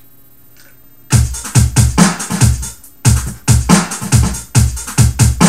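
Programmed dubstep drum track played back on its own, starting about a second in: deep kicks and a big heavy clap layered with the snare in a steady repeating pattern.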